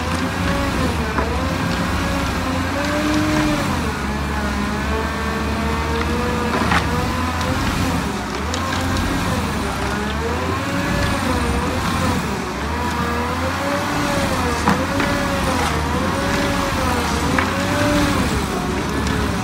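Cat 308E2 CR mini excavator running a hydraulic stump grinder: a steady diesel rumble under a whine that dips and rises about once a second as the cutter bites into the stump. A few sharp clicks stand out.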